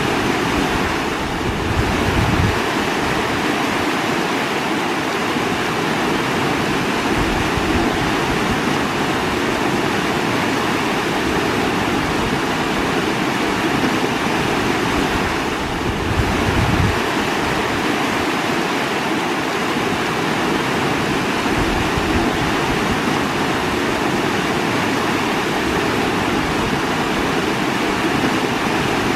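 Running water rushing steadily, with a couple of brief low rumbles about two seconds in and near the middle.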